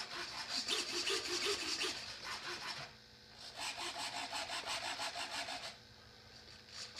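Two small RC servos (PKZ 1080 long-lead) driving the model's split flaps, making a rapid, rasping buzz in two stretches of a few seconds each with a short pause between, and a brief burst near the end.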